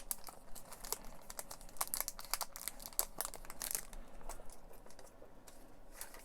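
Trading-card pack wrapper crinkling and tearing as it is opened by hand, a rapid run of crackles that thins out after about four seconds.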